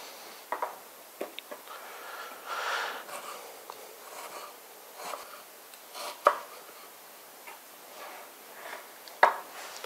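Kitchen knife slicing a red onion on a wooden cutting board: irregular knocks of the blade against the board, a few seconds apart, the loudest about six and nine seconds in.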